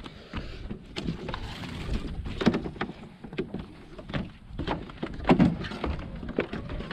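Footsteps on wooden dock planks: a run of irregular dull knocks, about one or two a second.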